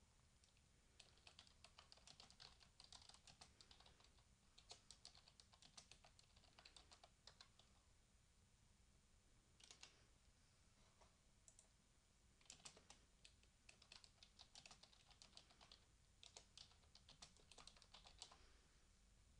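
Faint typing on a computer keyboard: short runs of key clicks with brief pauses between them, and a longer pause around the middle.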